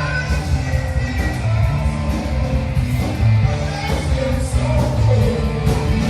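Live band playing amplified music with a singer, loud and continuous with heavy bass.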